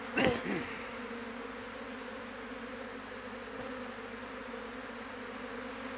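Honeybee swarm buzzing steadily as it crowds into a new hive, with a brief louder buzz falling in pitch just after the start.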